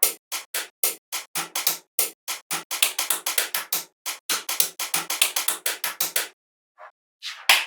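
A fast, uneven run of sharp clicks or taps, several a second, pausing for about a second near the end before starting again.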